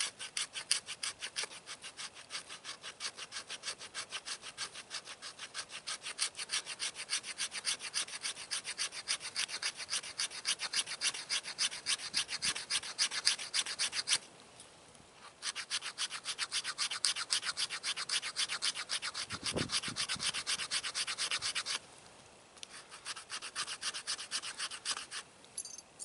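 The sharp 90-degree spine of a high-carbon steel M.O.U.C.E. belt buckle scraping down a stick of fatwood in fast, even strokes, about four or five a second, shaving off fine resinous scrapings as tinder for a ferro rod fire. The scraping pauses briefly twice.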